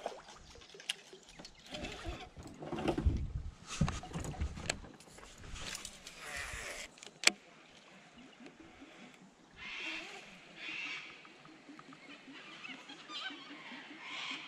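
Fishing tackle being handled in an aluminium boat: thumps and knocks, then one sharp click about seven seconds in. A couple of short, harsh animal calls come near ten and eleven seconds.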